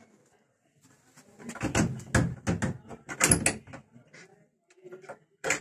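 Wooden cupboard door being handled: a quick run of knocks and rattles starting about a second and a half in and lasting about two seconds, then another loud knock near the end.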